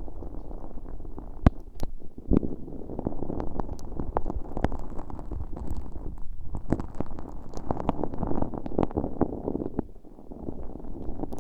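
Earpick scraping and squishing a sticky, stiff glitter slime in the right ear of a bare microphone. It makes close-up crackling and sticky popping with sharp clicks now and then, and eases off briefly near the end.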